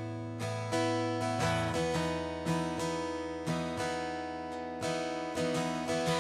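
Steel-string acoustic guitar strummed alone, ringing chords struck about two to three times a second in a steady rhythm.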